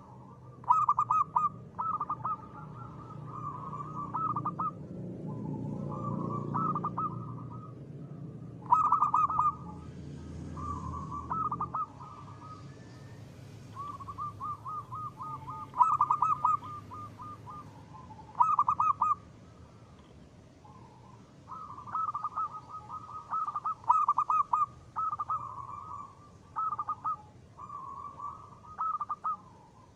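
Zebra doves cooing: a run of short, trilled coo phrases repeated one after another with brief pauses between them.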